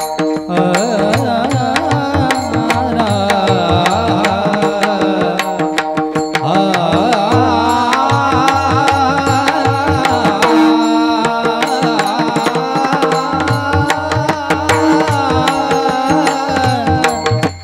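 Marathi bhajan music: tabla strokes under a steady held drone, with a wavering, ornamented melody line that slides in pitch throughout.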